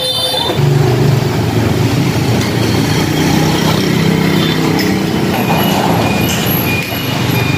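A motor vehicle's engine running close by, steady and loud.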